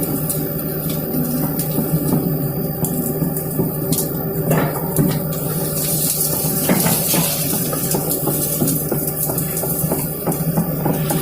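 Komatsu excavator's diesel engine running steadily, with many short crackles and clicks over it.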